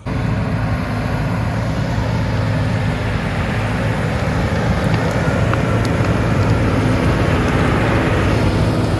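Heavy machine's engine running steadily, a low hum that grows slightly louder toward the end.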